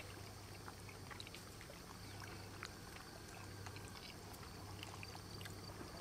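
Quiet background: a faint steady low hum with a few faint scattered clicks.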